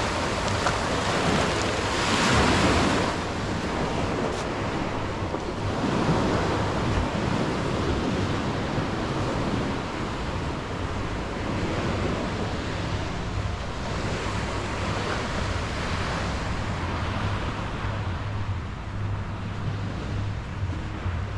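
Small sea waves breaking and washing up the beach, in broad surges that are loudest about two and six seconds in, with wind rumbling on the microphone.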